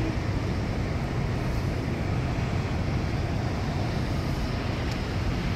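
Steady city street ambience: an even, low rumble of traffic with no distinct events.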